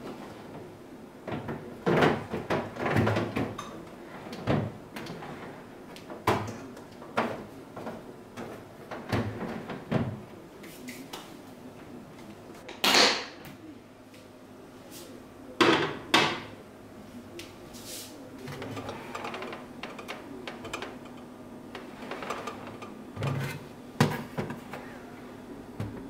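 Clear plastic refrigerator crisper drawers and food containers being handled and slid back into a fridge: a series of plastic knocks, clatters and sliding scrapes at irregular intervals, the loudest a longer scrape a little before the middle.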